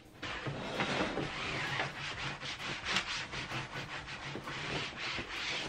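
Hands brushing and rubbing across the fabric upholstery of an IKEA Balkarp sofa bed, a continuous rustling with small taps scattered through it.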